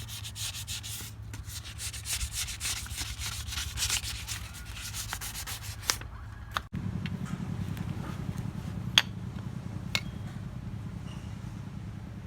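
Fast, dense scrubbing strokes on the blackened crown of a Jiangfa D30 diesel piston, rubbing off carbon deposits to polish it. About six and a half seconds in the scrubbing stops abruptly, giving way to a steady low hum with a few sharp clicks.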